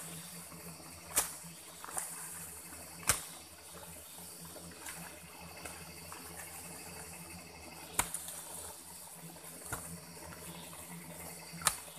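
A long-handled hoe chopping into earth: about five sharp strikes at uneven intervals, over a steady high hiss.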